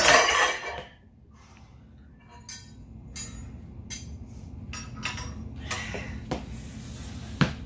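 Metal grip handle clinking against a plate-loaded loading pin and its weight plates: a loud burst in the first second, then about eight sharp separate clinks over the next few seconds.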